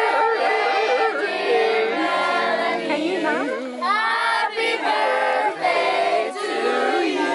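A crowd of children and adults singing a birthday song together in unison to the birthday girl, with held notes.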